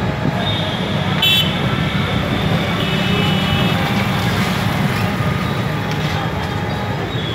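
Street traffic heard from a moving auto-rickshaw: a steady low engine rumble, with vehicle horns tooting briefly about a second in and again around three seconds in.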